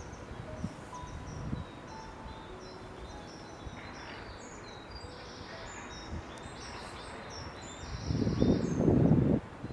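Small birds chirping and singing, many short high calls and trills, busiest in the middle. About eight seconds in, a loud low rush of wind buffets the microphone for over a second.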